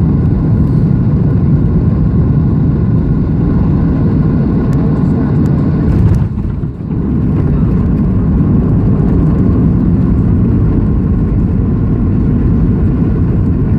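Cabin noise inside a Boeing 737-700 on the ground after landing: a steady low rumble of its CFM56-7B engines, airflow and wheels. The level dips briefly about six and a half seconds in.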